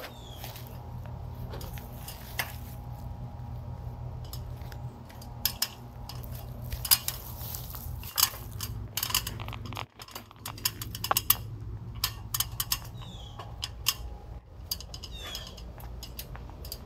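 Scattered sharp clicks and knocks from handling a plastic jug and climbing a ladder, over a low steady rumble, with a few short high falling chirps in the second half.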